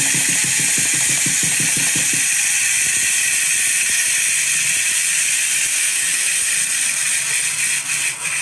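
A drumbeat that stops about two seconds in, under a loud, steady hiss that carries on after it, with a few clicks near the end.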